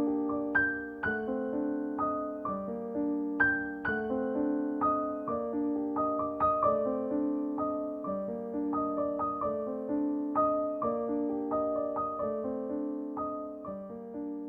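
Background piano music: a gentle melody of struck notes, slowly getting quieter toward the end.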